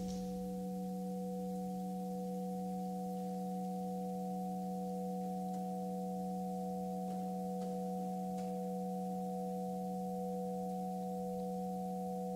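Electronic tape music played over the hall's speakers: a drone of several steady pure tones stacked at different pitches, held unchanged. A few faint scuffs sound in the middle.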